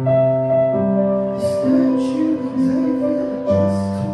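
Live electronic keyboard playing slow, sustained chords over held bass notes that shift every second or so. About a second and a half in, light percussion ticks come in at roughly two a second.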